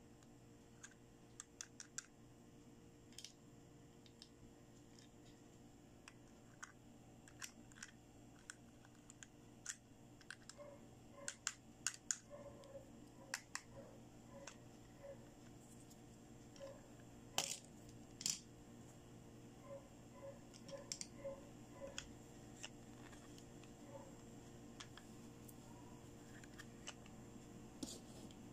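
Light plastic clicks and taps from plastic tweezers picking removable teeth out of a hinged plastic toy dentist mouth and setting them down. The clicks come singly and irregularly, thickest in the middle.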